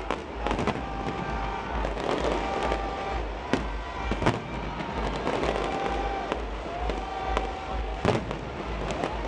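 Aerial fireworks bursting overhead: a continuous crackle with many sharp bangs, the strongest a little past three and four seconds in and about eight seconds in, mixed with short whistling tones that rise and then hold.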